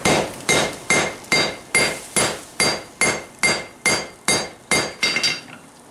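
Hand hammer striking a white-hot layered steel billet on a Peter Wright anvil to set a forge weld: about fourteen even blows, roughly two a second, each with a short metallic ring, stopping just before the end.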